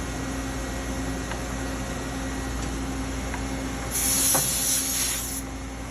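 Steady low machine hum in a machine shop. About four seconds in there is a hissing burst, high in pitch, that lasts about a second and a half, with a small click partway through.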